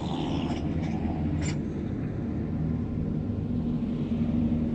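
A passing motor vehicle's engine running and slowly getting louder as it draws near. A single light click sounds about a second and a half in.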